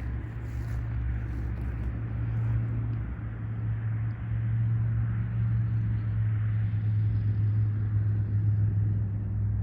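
An engine idling with a steady low hum that grows slightly louder partway through.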